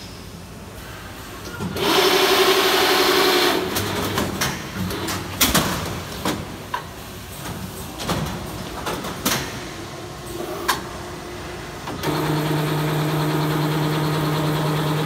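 Automatic plastic-film winder running a reel change. About two seconds in comes a loud burst of motor whine with hiss. Then there is a run of clicks and clunks from its core-loading mechanism, and from about twelve seconds a steady motor hum.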